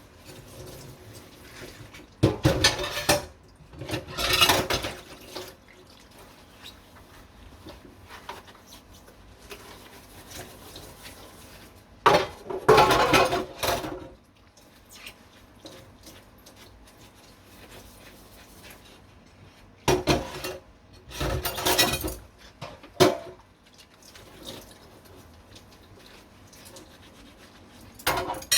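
Dishes being washed by hand at a kitchen sink: several loud bursts of about a second each, of water and clattering dishes, with quieter handling and scrubbing between them.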